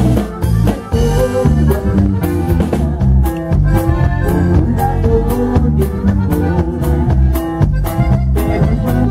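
Conjunto band playing live: an instrumental passage with a steady drum beat and cymbal strokes over a heavy bass line.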